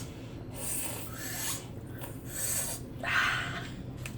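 Spaghetti being eaten noisily: a few separate wet slurps and chews, the loudest about three seconds in.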